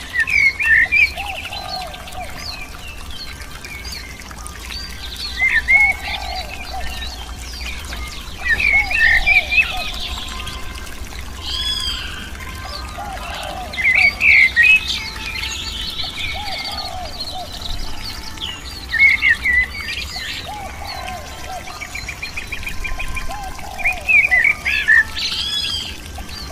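Birds chirping and calling in short bursts every few seconds, with lower calls in between, over a steady low hum.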